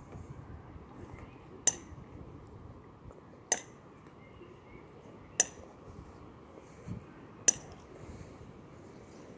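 Four sharp clicks, evenly spaced about two seconds apart.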